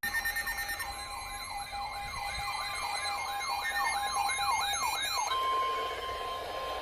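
Emergency alert tones: a siren-like tone sweeping upward over and over, about two and a half sweeps a second, over a steady tone. About five seconds in the sweeping stops and a single steady alert tone holds on.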